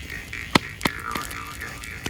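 A jew's harp (vargan) twanging, its overtones shifting up and down, over a wood fire crackling with several sharp pops.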